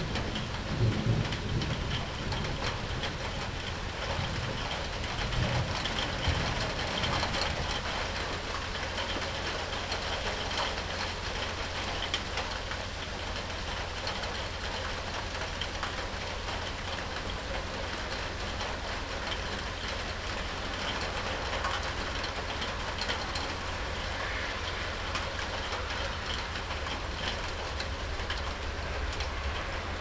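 Steady rain falling in a thunderstorm, with a low rumble of thunder dying away over the first several seconds.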